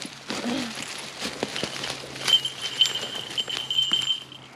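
Hawk tearing into a freshly killed squirrel: a run of sharp cracks and snaps as it rips and breaks the carcass. A thin, steady high whistle sounds for about two seconds in the middle.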